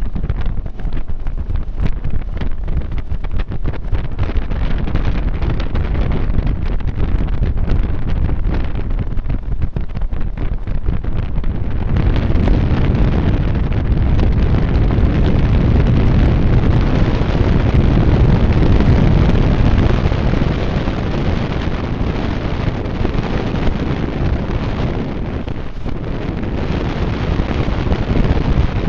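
Wind buffeting the microphone on a motorboat under way, a loud low rush. It comes in choppy gusts at first and turns steadier and fuller about twelve seconds in.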